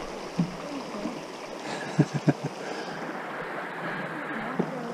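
A creek running steadily over rocks, an even rush of water, with a few short knocks about two seconds in.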